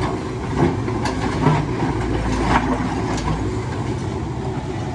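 Heavy construction machinery's diesel engine running steadily, with a few sharp knocks or clanks.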